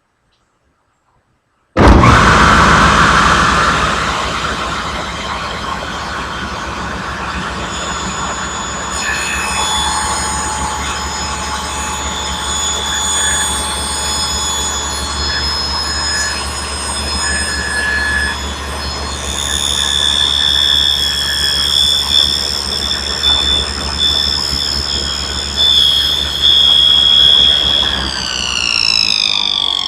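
Table saw with a dado blade starting up abruptly, then running and cutting a stopped dado in a board, with a high whine through the cut. Near the end the saw is switched off and the blade winds down, its pitch falling.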